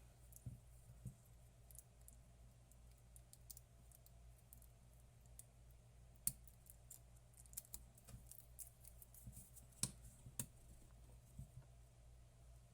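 Faint, scattered light clicks and taps of small watch parts and Kapton tape being handled, over a steady low hum. The sharpest clicks come about six seconds and ten seconds in.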